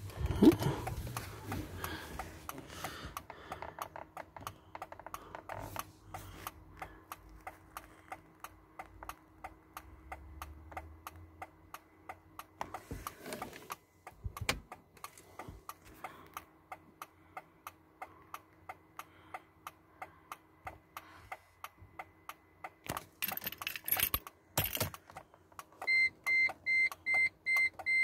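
Regular sharp clicking inside a car cabin, about two clicks a second. Near the end a repeating high electronic warning beep starts, also about twice a second, with a couple of brief rustles just before it.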